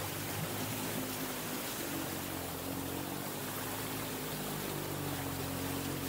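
4x4 vehicles wading through a flooded river crossing: water rushing and splashing against the bodywork, with a steady engine drone underneath.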